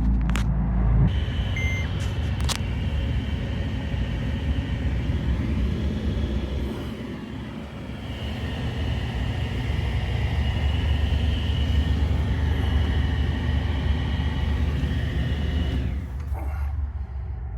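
John Deere 331G compact track loader running, its Yanmar four-cylinder turbo diesel giving a heavy rumble with a higher whine over it. The sound eases off about halfway through, builds again, and the whine stops near the end.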